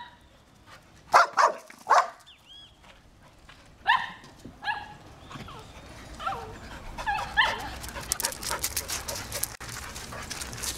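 Dogs barking, yelping and whining: two sharp barks about a second in, two yelps falling in pitch a few seconds later, then a string of short whimpering yips. Near the end comes a run of fast clicks and rustles.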